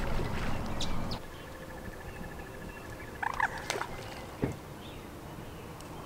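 Waterside ambience with a bird calling briefly about halfway through. A thin steady buzz lasts a couple of seconds before the call. A few clicks and a dull plop follow as a cast carp rig lands in the water.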